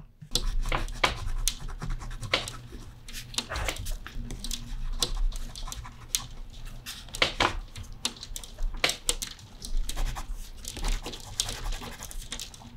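Rubber ice cleats with metal studs being stretched on over boots: rubbing and scraping with many sharp clicks of the studs, and boots shuffling on a doormat.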